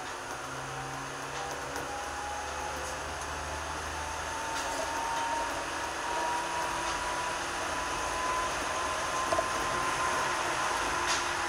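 A 205 series 1000-subseries electric train running and gathering speed: the motor whine rises slowly in pitch over the noise of wheels on rail, growing steadily louder, with a couple of faint clicks.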